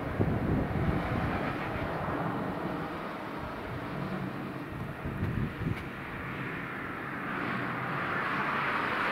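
Jet engines of an Airbus A321 airliner on final approach, a steady rushing that grows louder toward the end as the plane comes closer. Gusts of wind buffet the microphone in the first half.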